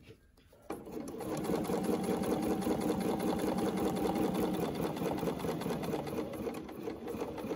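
Bernina 770 domestic sewing machine stitching at a steady speed during free-motion ruler quilting. It starts up just under a second in, after a brief stop.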